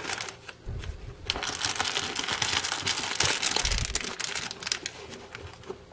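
Foil-wrapped trading card packs crinkling and rustling as hands shift them around in a cardboard display box, with many light clicks and taps.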